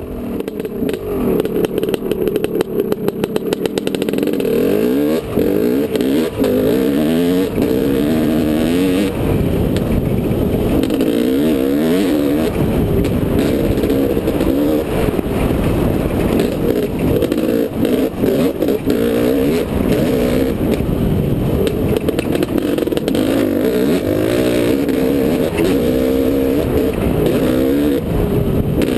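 Dirt bike engine running as it is ridden along a dirt trail, its pitch rising and falling over and over with the throttle.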